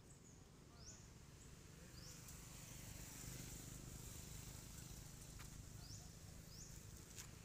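Faint forest ambience: a steady high insect hiss with a few short, quick-rising chirps, one every second or so, over a low rumble.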